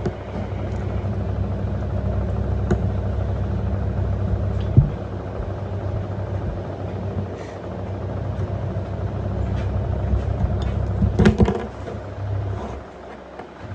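LG F1222TD washing machine running with a steady low hum. There is a short louder clatter about 11 seconds in, then the hum drops away briefly near the end and starts again.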